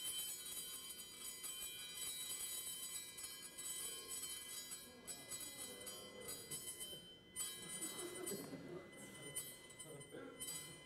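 Brass Chladni plate ringing with several high, steady tones at once as a piece of dry ice is pressed against it: rapid pulses of CO2 gas from the dry ice set the plate vibrating. It is a jangly mix of tones rather than one pure note, and some tones drop out and come back as the pressure changes.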